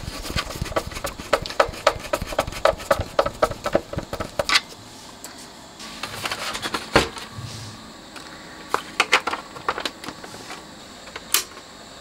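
A screw being driven home with a screwdriver: a quick run of clicks for about four and a half seconds, then a few single knocks as parts are handled.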